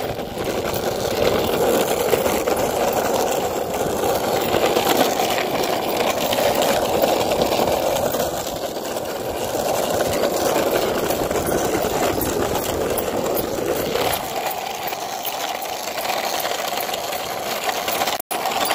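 Steady rumble of longboard wheels rolling over an asphalt path. The deepest part of the rumble falls away about fourteen seconds in, and the sound cuts out for an instant near the end.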